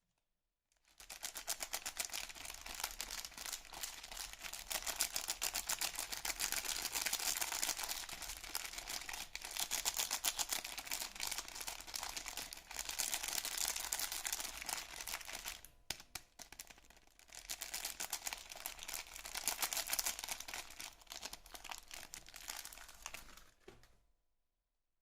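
Soap packaging being handled and unwrapped: dense, continuous crinkling of the wrapping, with a brief pause about two-thirds of the way through.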